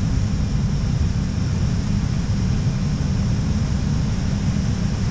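Steady flight-deck noise of an Airbus A320 in flight: a constant low rumble with a faint high hiss above it, unchanging throughout.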